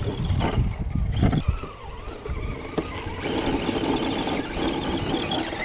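Axial SCX10 RC crawler's electric motor and gear drivetrain whining as the truck drives, over a low rumbling noise; the whine steadies about three seconds in.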